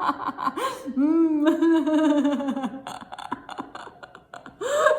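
A woman laughing on purpose, as in laughter yoga. About a second in she holds a long voiced laugh, which breaks up into short, fainter chuckles, and another laugh starts just at the end.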